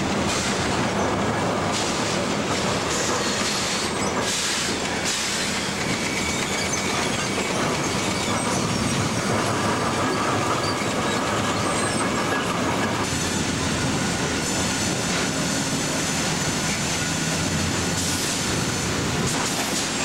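Sawmill machinery running in full operation: a loud, continuous mechanical din of conveyors and metal equipment rattling and clanking.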